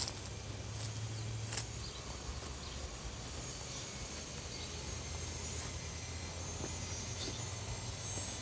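Outdoor background: a steady low hum under a faint, high insect buzz, with two short clicks near the start about a second and a half apart.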